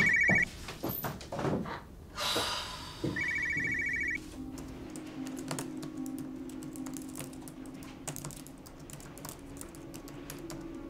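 Mobile phone ringtone, a fast warbling electronic trill, rings twice, about a second each time, at the start and about three seconds in. After that, rapid laptop keyboard typing clicks over a held low music note.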